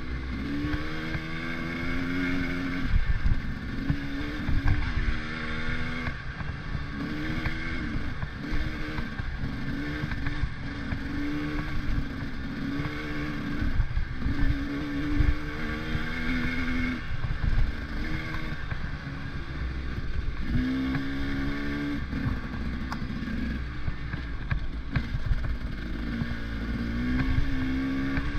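Vehicle engine running under way, its pitch rising and falling again and again every second or two, over a steady low rumble and some wind noise on the microphone.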